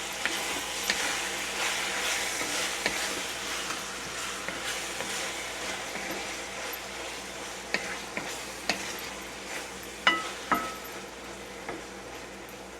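Ground pork with tomato sauce sizzling in a frying pan as it is stirred, with a utensil scraping and knocking against the pan; a few sharp taps in the second half ring briefly.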